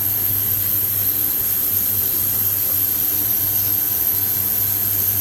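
Industrial ultrasonic parts-washing tank running with its ultrasonics switched on and the parts basket submerged: a steady machine hum with a hiss and a thin high whine.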